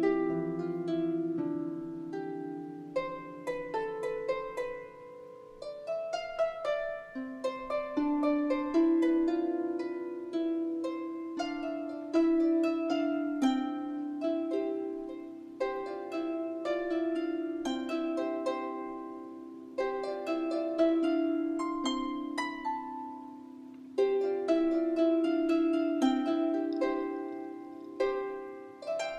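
Background music on a digitally played Celtic harp: plucked notes that ring and fade, often several sounding together in chords.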